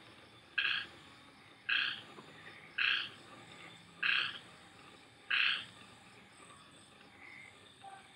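A frog calling at night: five short, regular croaks about a second apart that stop a little past halfway, over faint steady rain hiss.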